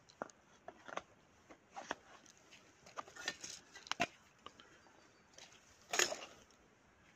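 Irregular small clicks and rattles of handling, with one louder click and rattle about six seconds in.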